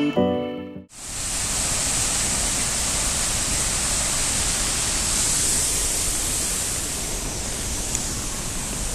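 Krimml Waterfalls: steady, loud rushing of falling water. The last notes of background music cut off about a second in, just before the water noise starts.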